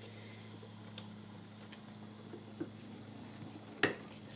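Quiet handling of a leather strip at a Craftool leather splitter: faint ticks over a low steady hum, then one sharp click near the end as the strip is set against the splitter.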